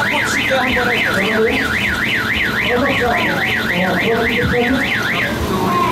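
Electronic alarm siren warbling rapidly up and down, about three to four sweeps a second, then cutting off near the end.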